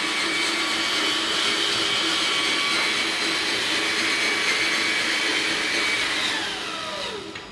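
Electric drive motor and two-speed metal gearbox of a 1/20-scale RC CAT 793D mine truck whining at full throttle in low gear. The whine holds a steady pitch, then falls away in pitch and level about six seconds in as the truck slows.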